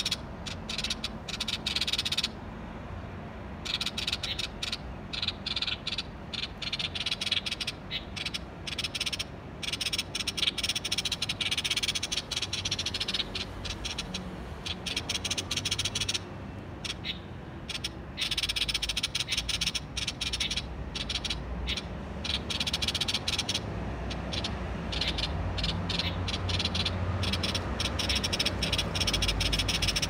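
Light-vented bulbul calling close by in long runs of rapid, harsh notes, pausing briefly about two seconds in and again about halfway through.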